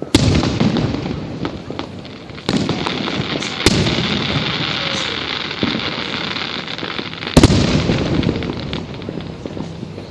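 Aerial fireworks bursting: four sharp bangs, the first just after the start, then about 2.5 s and 3.7 s in, and the loudest about 7.4 s in, with a dense crackle running between them.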